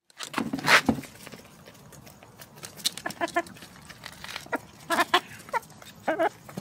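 Domestic chickens clucking: short pitched clucks in quick groups of two or three. A loud noisy burst comes within the first second.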